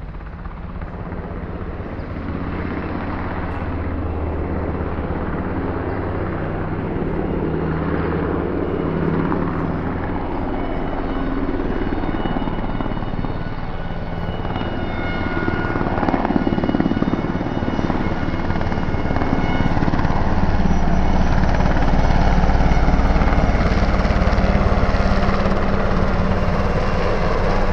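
A UH-60 Black Hawk helicopter flying with its rotor running and a steady turbine whine, growing louder as it comes closer.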